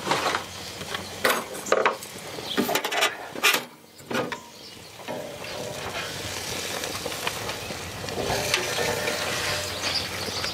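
Metal spatula knocking and scraping on a gas grill's grate as grilled stuffed portobello mushroom caps are lifted off, a few sharp clicks at irregular spacing. From about halfway through, a steady sizzling hiss from the hot grill.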